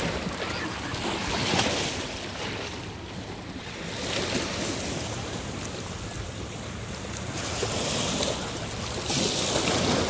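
Small waves washing in and splashing against rocks on a breakwater, with wind buffeting the microphone. The wash swells louder about a second and a half in and again near the end.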